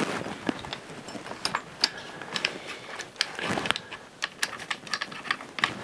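Irregular light clicks and taps of a coil-spring compressor being fitted and adjusted onto a car's front coil spring, with a short scrape about three and a half seconds in.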